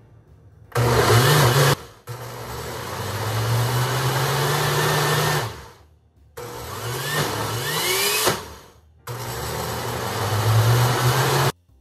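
Oster countertop blender motor running in four bursts, switched on and off with short pauses between, blending cereal and milk into a thick paste. In the third burst the pitch slides upward as the blades speed up.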